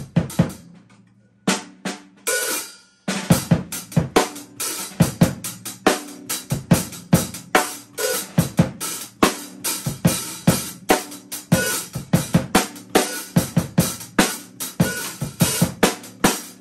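Drum kit played with sticks, quick strikes on the drums and cymbals. It thins to a few hits about a second in, then a steady beat starts up again about three seconds in.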